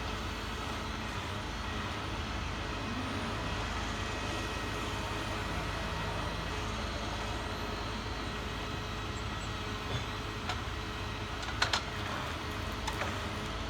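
An engine running steadily, with a few sharp knocks near the end.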